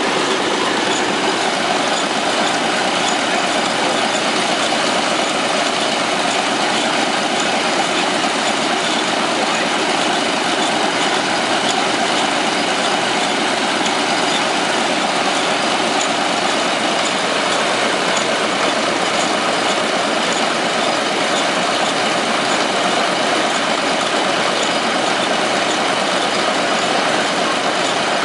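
Vintage Caterpillar D13000 diesel engine running steadily, with no change in speed.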